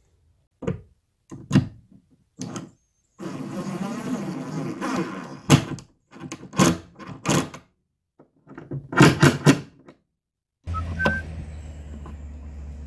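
Knocks, taps and clicks of a plastic electrical box being handled and pressed in its hole in the wall, with a stretch of rougher scraping noise in the first half. A steady low hum comes in about two-thirds of the way through.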